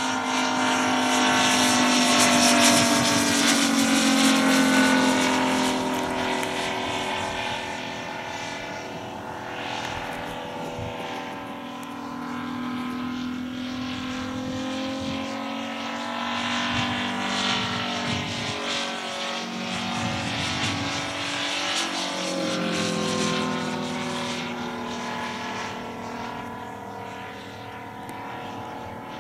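A propeller biplane's engine running in flight, its pitch rising and falling as it manoeuvres, loudest in the first few seconds and then fading somewhat.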